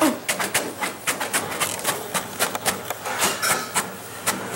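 An irregular run of clicks and knocks, several a second, like things clattering.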